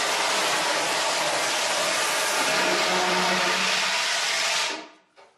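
Fire extinguisher discharging: a loud, steady hiss that cuts off about four and a half seconds in.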